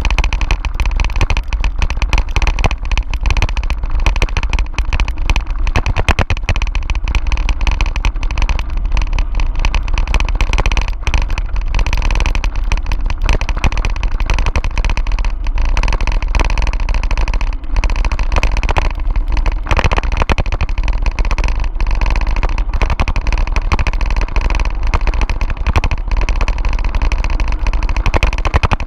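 Bicycle rolling fast over a gravel road: continuous rattling and tyre crunch from the bike on the rough surface, under heavy wind rumble on the microphone of a camera riding along with it.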